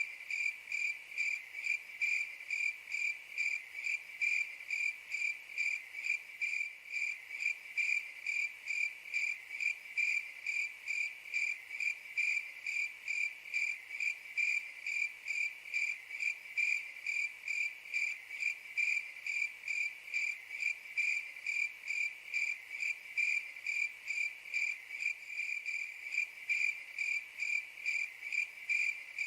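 Cricket chirping: a steady run of rapid, evenly spaced high-pitched chirps at one pitch, without a break.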